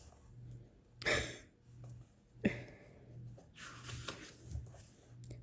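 Quiet handling of a photobook: a short sharp breath about a second in, then a click and light paper rustles as pages are turned, over a faint low hum.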